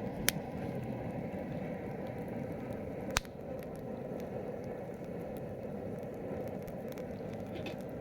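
Campfire burning with a steady low rush, scattered small crackles and two loud sharp pops, one about a third of a second in and one about three seconds in.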